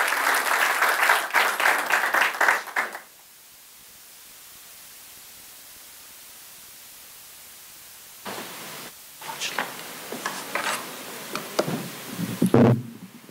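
Audience applauding in a hall, dying away about three seconds in. Then a low steady hiss, and near the end a few knocks and rustles as the podium microphone is handled.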